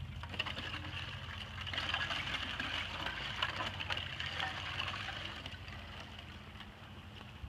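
Broken river ice floes jostling and grinding against each other and the bank during spring breakup: a crackling, tinkling hiss of many small clicks that swells a couple of seconds in and then fades.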